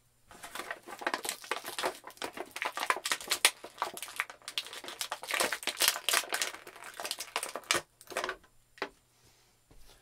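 Plastic packaging of an action figure crinkling and crackling in quick, irregular bursts as the figure is worked out of it; the handling stops about eight seconds in, followed by a few separate clicks.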